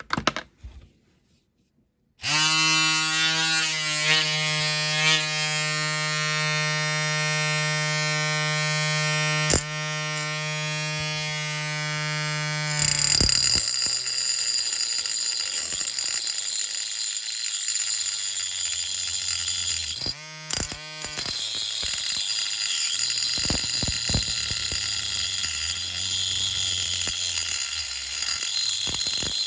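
Small handheld electric rotary tool switched on about two seconds in, running with a steady hum; from about thirteen seconds the hum gives way to a harsher grinding as it cuts into the diecast metal wing, with a short break near twenty seconds.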